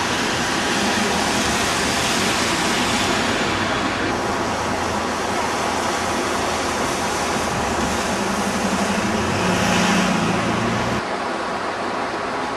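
Town road traffic with bus engines running past. Between about eight and eleven seconds in, a bus engine's note steps up in pitch as it accelerates, and the background noise changes abruptly twice as the shots cut.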